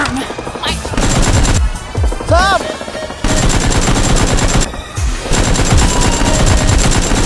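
Rapid automatic gunfire sound effects, a dense run of shots in quick succession with a short lull about five seconds in.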